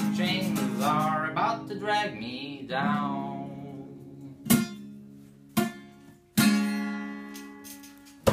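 Acoustic guitar and voice closing a song: a wordless sung note over the guitar for about the first three seconds. Then a few single strums, each left to ring out and fade, and a sharp short hit at the very end.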